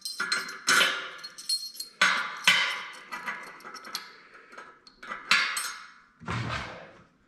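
Steel pins set into the holes of a metal bender's steel die plate, clinking with a bright metallic ring, several separate strikes.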